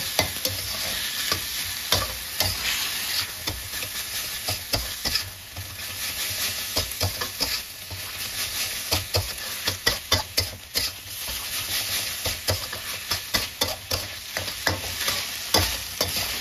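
Minced pork sizzling in a wok while a metal spatula stirs and scrapes it, with many quick clinks of the spatula against the pan. The pork is being stir-fried so the added seasonings dissolve into it.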